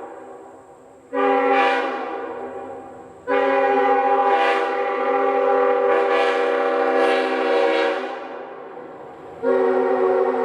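Multi-chime locomotive air horn sounding a chord in three blasts: a short blast about a second in, a long blast of about four and a half seconds, and another starting near the end. Each blast cuts in sharply and trails off over a second or two as the air drops away.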